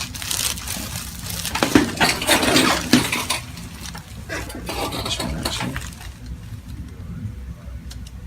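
A run of sharp clicks and rustling handling noises, loudest about two and three seconds in, then dying down, over a steady low hum.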